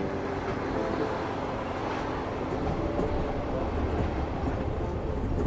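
Passenger train running on the line: a steady rumble of wheels on rail with a few faint clicks.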